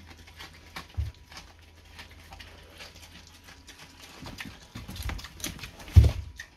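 Pig chewing and rooting at a half pumpkin, with irregular wet crunching and clicking bites. There is a low knock about a second in and a louder thump about six seconds in, as the pumpkin shell knocks against the floor.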